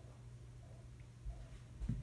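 Inside a 313 series electric train: a steady low hum with two short low thumps near the end.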